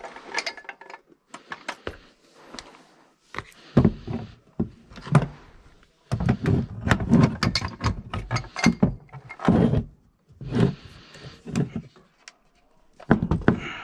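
Irregular metal clicks, knocks and clunks of a York furnace gas valve being handled and worked loose from its gas manifold with a hand tool.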